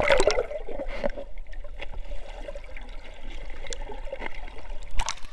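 Canyon stream water trickling and sloshing, with scattered small knocks and one sharp knock near the end.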